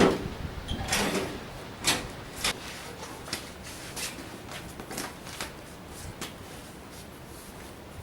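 Irregular hard knocks and clacks. The loudest fall in the first two and a half seconds, then lighter clicks thin out over the next few seconds.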